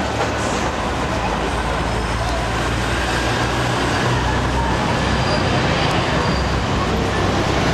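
City street traffic: a steady rumble of passing motor vehicles, with a low engine drone swelling in the middle as a heavier vehicle goes by.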